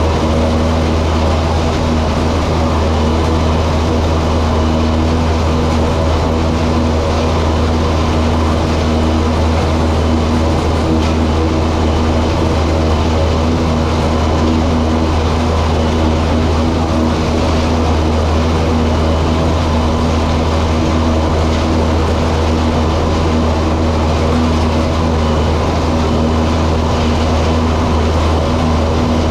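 Steady, loud mechanical hum that does not change: a strong low drone with a few held tones above it.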